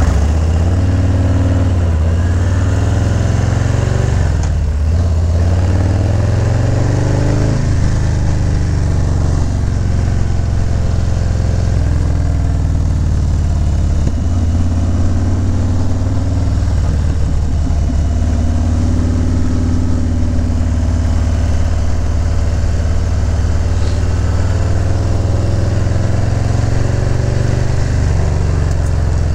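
Harley-Davidson Low Rider S V-twin engine running under way on the road, its pitch falling and rising a few times in the first eight seconds with throttle changes, then holding steady.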